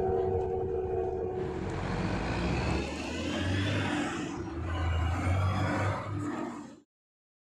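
A steady hum inside a moving city bus for the first second and a half. Then city street traffic at an intersection takes over, with cars passing twice in louder engine-and-tyre swells. The sound cuts off abruptly near the end.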